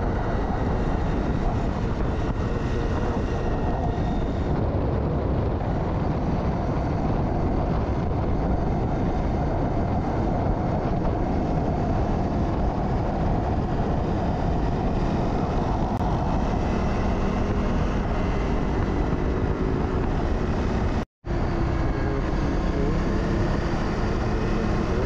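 Honda CRF250 dirt bike being ridden, its single-cylinder engine running under a steady rush of wind and road noise. The sound cuts out for an instant about four seconds before the end.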